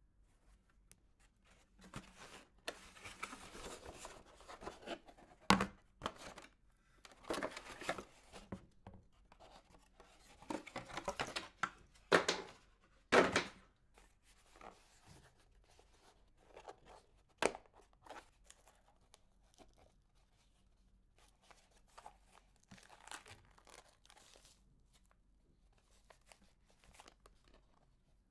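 Handling noise of unboxing: hands rubbing a foam windscreen and lifting and turning a translucent plastic carry case, with bursts of rustling and scraping and a few sharp plastic clicks and knocks. The handling is busiest in the first half and dies down to light ticks as the case is opened.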